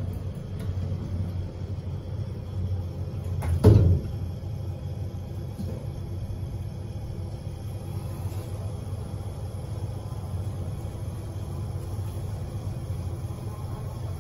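Otis Gen2 traction lift running, a steady low rumble, with one loud thump about four seconds in.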